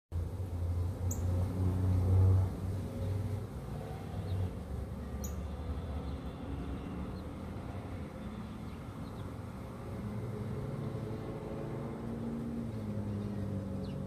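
Motor vehicle engine running on the street, a low rumble that is loudest about two seconds in and then settles to a steadier, lower hum. A few brief, high bird chirps come through over it.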